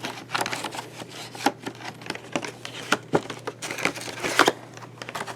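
Toy packaging being handled and packed back into its box: irregular crinkling and rustling with sharp clicks and taps.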